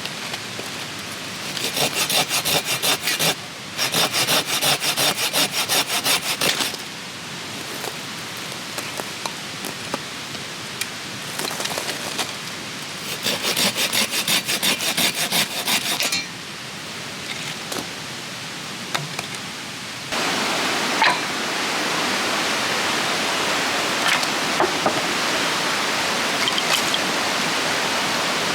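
Three bouts of fast, rhythmic rasping strokes, like wood being sawn or scraped, over a steady rush of river water. About two-thirds of the way through, the rushing water becomes louder and fills the rest.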